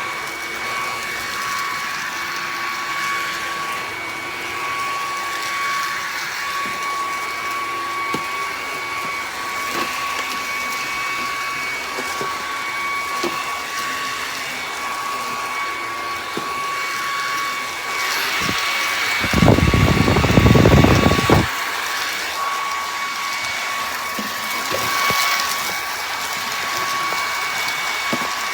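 Bissell PowerClean cordless stick vacuum running with a steady high-pitched motor whine over a hiss of airflow. About two-thirds of the way in there is a loud low rumble for about two seconds.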